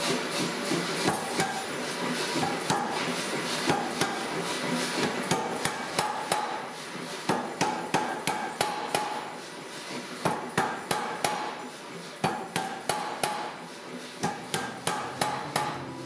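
Power hammer striking a glowing stacked Damascus steel billet, squeezing the layers together to forge-weld them. The blows come in runs of about four a second with short pauses.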